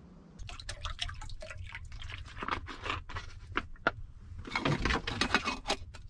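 Close rustling and clicking of things being handled, in two spells with a short gap, over a low steady rumble.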